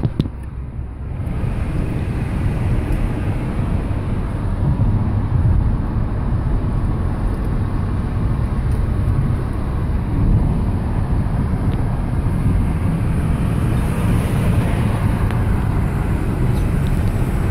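Steady road and engine rumble heard from inside a moving car's cabin on a highway, mostly deep, with no distinct events.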